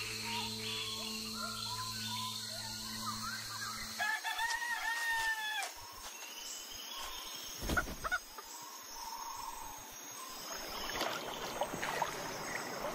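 A rooster crows once, about four seconds in, after a stretch of steady low hum with scattered night chirps. A single sharp knock follows a few seconds later, and splashy rustling, like a canoe paddle in water, sets in near the end.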